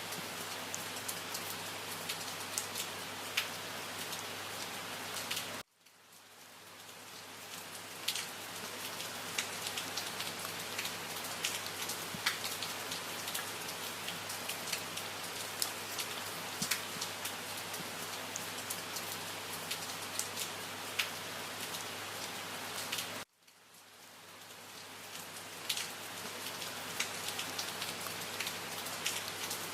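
Steady rain falling on a surface, with many separate drops ticking through the hiss. Twice the rain cuts out suddenly and fades back in over a couple of seconds, like the seam of a looped recording.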